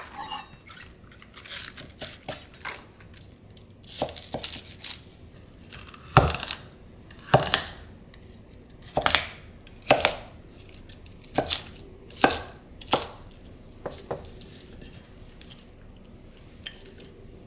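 A kitchen knife slicing through crisp napa cabbage stems on a wooden cutting board, each cut a sharp crunch. The cuts come at an unhurried pace of roughly one a second, with quieter handling of the leaves before and after.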